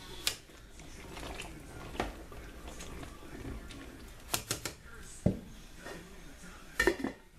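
A slotted spoon stirring boiling peanuts in a metal pot: scattered clicks and knocks of shells and spoon against the pot, a few at a time, with a cluster about four and a half seconds in and another near the end, over a low steady background.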